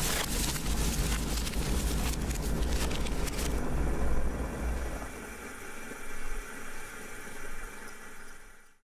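Cosori glass electric kettle at the boil: a deep rumble with crackling bubbles, which grows quieter after about five seconds and cuts off suddenly near the end.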